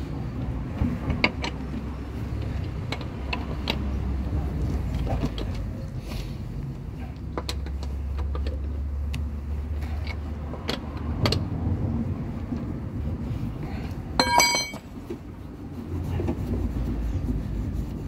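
Steel lug wrench clicking and clinking on the wheel bolts as they are run in and tightened on a car wheel. About 14 seconds in, a steel bar clangs once on the asphalt and rings briefly.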